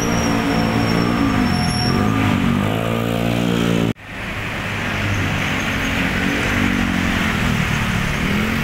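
Motorcycle engine running while riding in road traffic, its pitch rising and falling with the throttle over a steady rush of wind and road noise. The sound cuts out for an instant about four seconds in.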